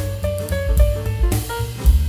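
Background music with a jazzy feel: drum kit, bass and melodic instrument notes.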